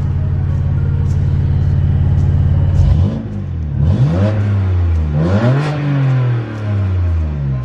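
BMW F80 M3's twin-turbo straight-six idling steadily, then free-revved up and down several times from about three seconds in, with no load on it while parked.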